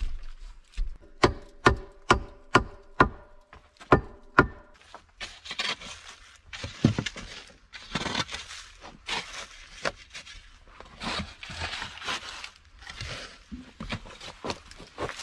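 Steel spade chopping into hard earth with about eight sharp strikes that ring like metal. It then scrapes and scoops loose soil in rough strokes about once a second.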